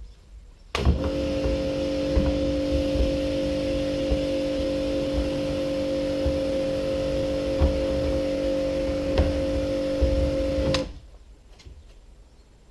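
Electric pressure washer running while it sprays water at a plastic IBC tank: a steady motor-and-pump hum with the hiss of the jet. It starts suddenly about a second in and cuts off sharply near the end.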